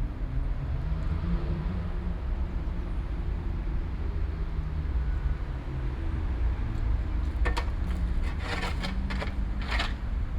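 City park ambience: a steady low rumble of distant road traffic, with a few short, sharp noisy sounds over the last few seconds.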